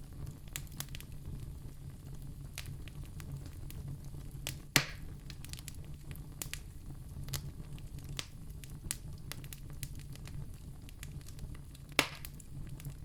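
Wood fire in a fireplace crackling, with many small snaps over a steady low rumble. Two louder pops stand out, about five seconds in and near the end.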